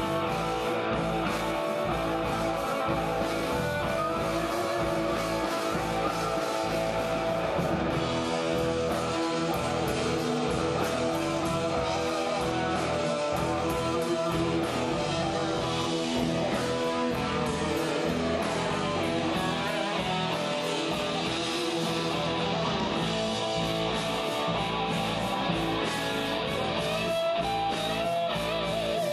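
Heavy metal band playing live: electric guitars over bass and drums, at a steady, loud level.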